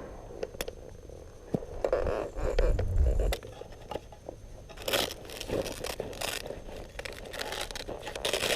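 Camping gear being handled: fabric rustling, scraping and crinkling, with a few sharp clicks and uneven bursts of louder rustle about two, five and eight seconds in.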